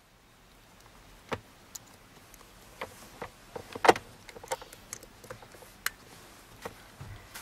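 Irregular light clicks and knocks, the loudest about four seconds in: a child's five-point harness, its buckle and straps being handled.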